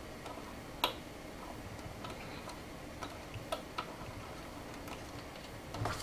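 A few small sharp plastic clicks and taps, the loudest about a second in and a close pair a little past halfway, as the cooler fan's cable plug is pushed onto the motherboard's CPU fan header. A steady low hiss lies under them.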